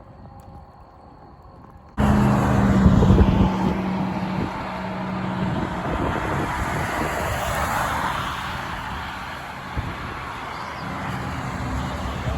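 A vehicle running, with heavy wind and road noise rushing over a phone microphone. It starts abruptly about two seconds in, after a quieter stretch, and a low engine hum sits under the noise at first and again near the end.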